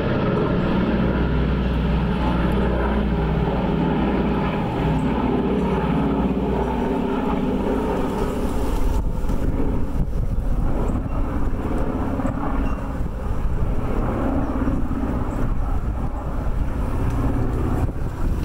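An engine running steadily, with a sudden start right at the cut; its sound changes about halfway through.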